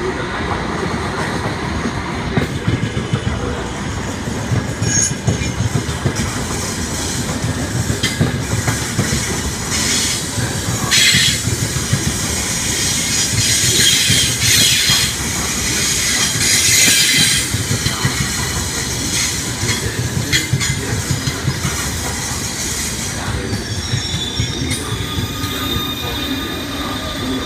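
Trenitalia Frecciargento electric high-speed train pulling slowly into a station platform, its wheels rumbling steadily on the rails. Bursts of high-pitched wheel and brake squeal come in the middle, from about ten to seventeen seconds in.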